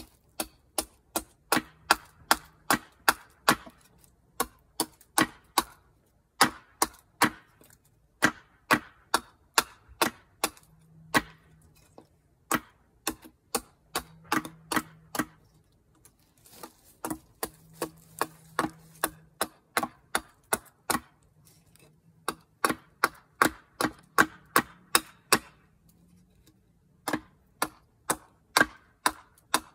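Gränsfors Bruk small carving hatchet chopping into wood: quick runs of sharp knocks, about three a second, in bursts of a few seconds with short pauses between.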